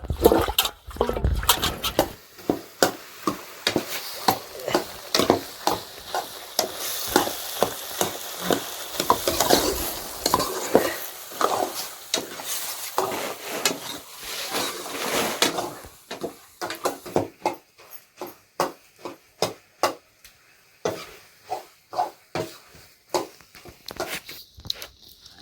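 A utensil stirring food in a cooking pan, with repeated short knocks and scrapes, and a sizzling hiss through the middle stretch that dies away in the quieter second half.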